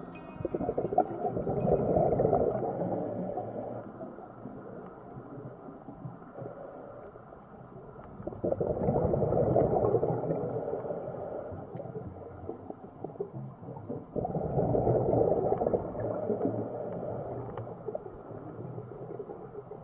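Scuba diver breathing through a regulator underwater: exhaled bubbles rumble in three long swells about six seconds apart, with a faint hiss of air between them.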